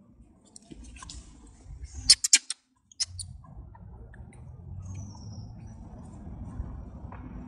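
A quick cluster of short, sharp high-pitched squeaks about two seconds in, with one more a second later, over a faint low rumble; a faint falling whistle follows near the middle.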